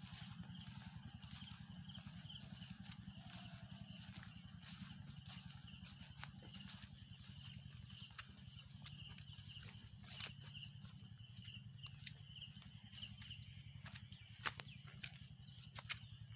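Insects chirring steadily in rural paddy fields and trees, a high continuous drone with a faster pulsing trill through the first half, with a couple of sharp clicks near the end.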